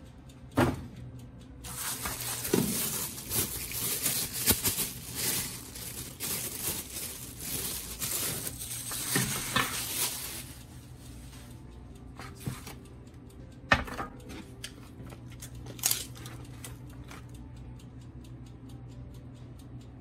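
Clear plastic bag crinkling and rustling for several seconds as a chrome wire toaster-oven rack is pulled out of it, then a few sharp clinks of the metal rack being handled.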